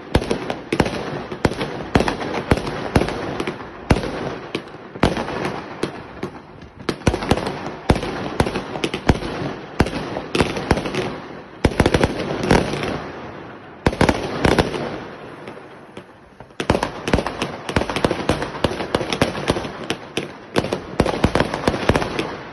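Funke Supernaut 2 firework battery firing a rapid string of shots, sharp bangs several a second over crackling star bursts. A brief lull comes about two-thirds through, then the volley picks up again.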